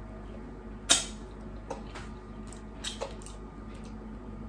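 Hand-cranked rotary egg beater whisking cake batter in a metal bowl: a sharp metal clink about a second in and a few lighter clinks near the three-second mark over a faint creaking of the turning beaters.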